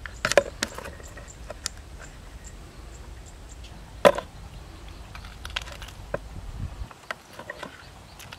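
A raw whole chicken and a large knife being handled over a plastic basin of water: scattered small clicks and knocks, with one sharp knock about four seconds in. A low rumble underneath drops away near the end.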